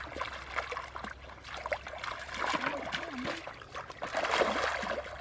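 Hands and feet splashing and sloshing in shallow muddy water, with water trickling, as fish are groped for by hand; the splashing is busiest about four seconds in.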